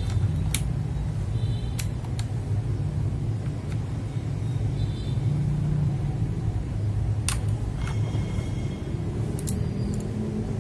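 A steady low rumble throughout, with about seven short sharp plastic clicks scattered across it as parts are pressed into a mechanical keyboard.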